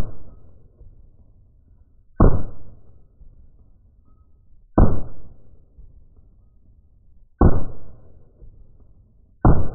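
Shots from an 1874 Camel model Gatling gun, slowed down: four heavy reports about two and a half seconds apart, each followed by a short rumbling decay.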